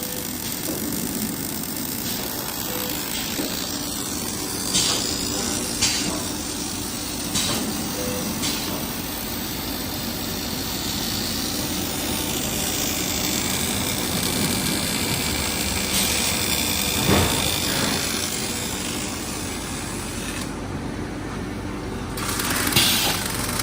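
Corrugated fin forming machinery running steadily, with a scattering of short sharp clicks and knocks from its moving parts.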